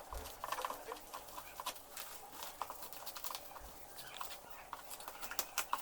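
Cardboard and plastic keyboard packaging being handled and opened: a run of scattered crackles, taps and rustles at uneven spacing.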